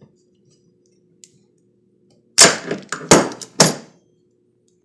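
Three sharp clacks about half a second apart, with short rings, from hand work on the chainsaw sharpener as the drive belt is fitted and tools are handled.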